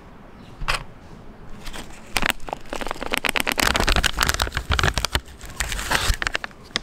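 Clear plastic snack pouch of dried capelin crinkling and crackling as hands handle it: one crackle near the start, then a dense run of sharp crinkles from about two seconds in that stops shortly before the end.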